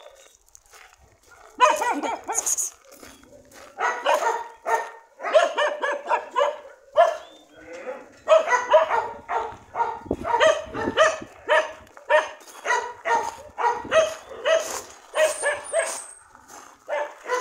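Dogs barking: a long run of short barks, starting about one and a half seconds in.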